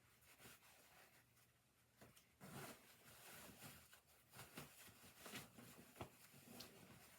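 Near silence in a small room: faint rustling and handling noises, with one soft click about six seconds in.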